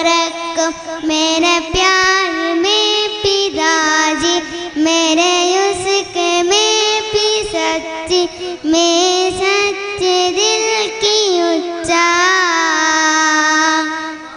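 A young girl singing a solo melody into a microphone, with long held notes whose pitch wavers in a vibrato.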